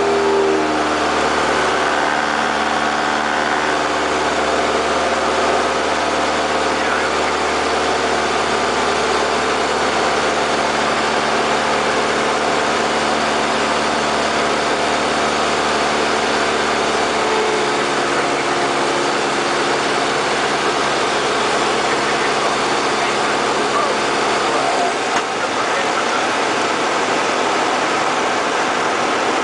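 Light single-engine airplane's piston engine and propeller running steadily under a constant rush of airflow, heard from inside the cockpit, throttled back for a power-off approach. The low engine note thins out about 25 seconds in.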